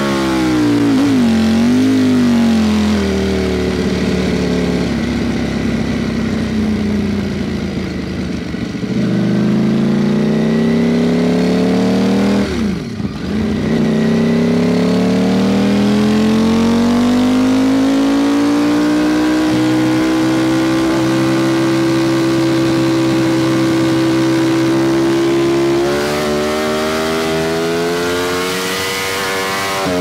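Ducati Panigale V4 SP2's V4 engine through an Akrapovic slip-on exhaust, heard on the move as the rider works the throttle. The engine note falls away for several seconds, dips sharply for a moment about thirteen seconds in, then climbs and holds steady before stepping again and rising near the end.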